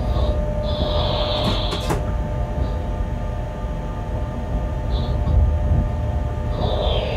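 Bombardier Traxx BR 186 electric locomotive rolling slowly, heard from its cab: a steady low rumble of wheels on rail with a faint steady hum. Short high-pitched wheel squeals on the curving track and points, one about a second in lasting about a second and ending in a couple of sharp clicks, and another near the end.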